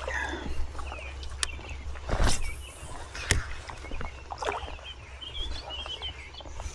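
Outdoor river ambience while wading: a steady low rumble with a few short sloshing knocks, the loudest about two seconds in. Faint bird chirps come near the end.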